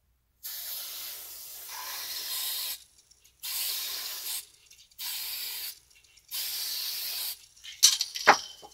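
Aerosol can of gold metallic spray paint hissing in four separate bursts, the first the longest, as paint is sprayed onto wet acrylic. A few sharp knocks come near the end.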